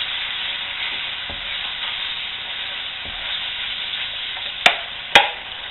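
Butter-and-flour roux sizzling in a frying pan while a wooden spatula stirs and scrapes through it. Two sharp knocks about half a second apart come near the end.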